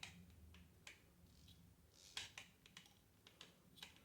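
Faint, scattered light clicks and taps of small tools being handled, a dozen or so across a few seconds with a small cluster about halfway through.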